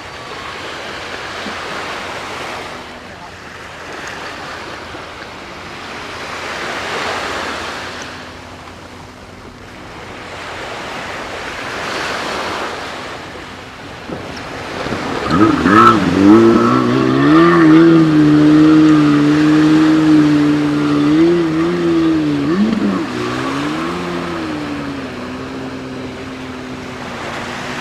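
Waves breaking on the shore, swelling and fading. About fifteen seconds in, a jet ski's engine revs up, its pitch rising quickly and then holding steady with a few small dips, louder than the surf. Near the end it settles to a lower pitch.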